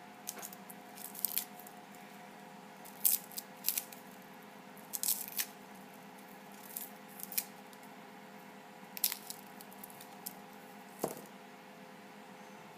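Dry, papery garlic skins crackling and rustling as cloves are peeled by hand and with a paring knife: short, irregular crackles, some a little louder than others. A steady hum runs underneath.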